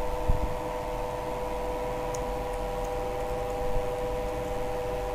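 Steady background hum made of several held tones, with a few faint clicks of computer keyboard typing about two to three seconds in.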